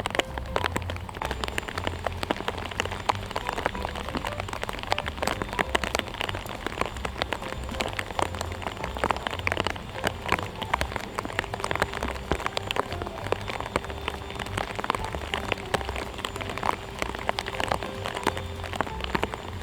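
Rain falling on a hard surface: a dense, steady patter of small drops.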